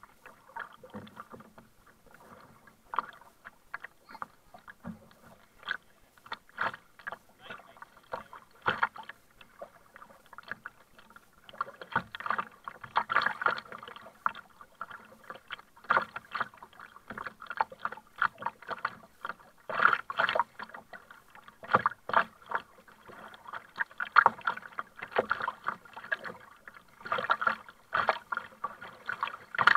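Double-bladed kayak paddle dipping and pulling through sea water on alternate sides, with splashes and water sloshing against a plastic sit-on-top kayak hull. The splashes come irregularly, about one every second or two, and grow louder and busier about halfway through.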